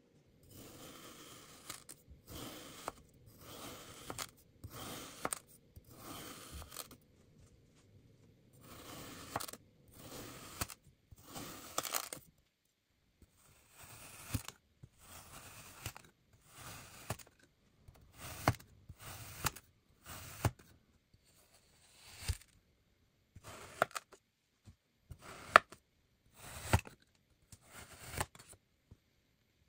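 Kinetic sand being sliced and pressed with a wavy crinkle-cut metal blade and a wooden dowel: a series of short grainy, crunchy cutting strokes, about one a second, with a few sharp clicks among them in the second half.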